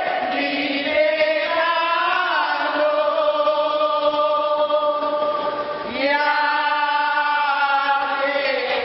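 A group of voices singing a slow hymn together in long held notes that step from one pitch to the next, with a short breath and a new phrase about six seconds in.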